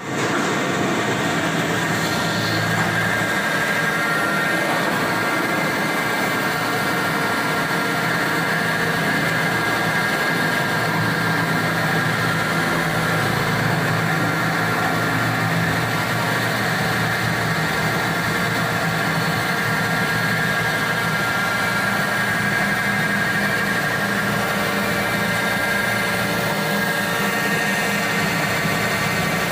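CNC machine running steadily, with a constant high whine over the machining noise.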